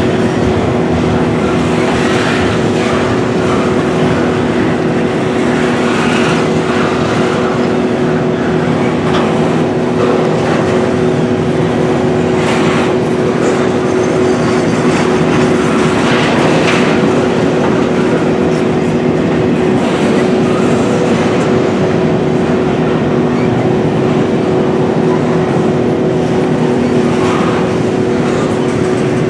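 Double-stack intermodal container train's well cars rolling past at steady speed: a continuous rumble of steel wheels on rail with a steady ringing tone and occasional sharper clacks.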